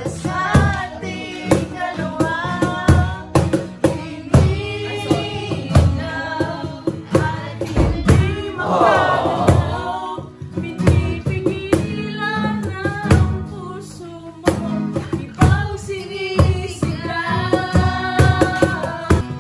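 A woman singing to a strummed acoustic guitar, with a wooden cajon slapped in a steady beat.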